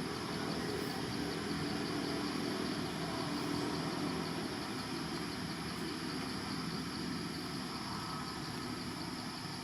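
Steady low mechanical hum with a steady high hiss above it, swelling slightly around the middle and easing off near the end.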